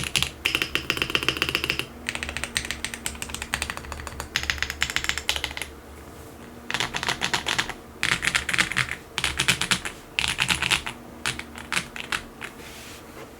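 Typing on a KBDCraft Adam gasket-mounted mechanical keyboard with factory-lubed Switch S² Engine linear switches on a POM plate and OEM-profile keycaps. The keystrokes come in fast runs of rapid clicks, with brief pauses between runs, the longest about six seconds in.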